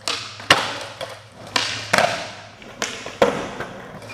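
Skateboard tricks on flat ground: three sharp tail pops, each followed about half a second later by the snap of the landing, and the hiss of the wheels rolling on smooth concrete after each landing.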